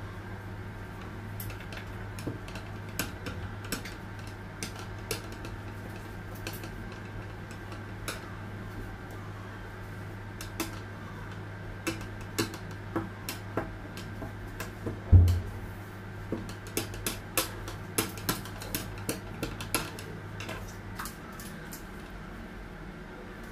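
Scattered light taps and clicks of a rolling pin and hands working fondant on a countertop, with one louder knock about fifteen seconds in. A steady low hum runs underneath and stops near the end.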